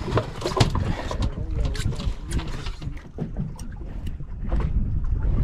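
Wind buffeting the microphone in a steady low rumble, with scattered knocks and clicks.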